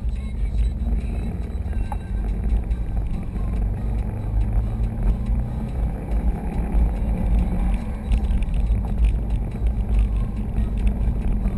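Cabin noise inside a 2011 Subaru STI driving at about 40 mph with the windows closed: a steady low rumble of engine and tyres, with the air-conditioning running.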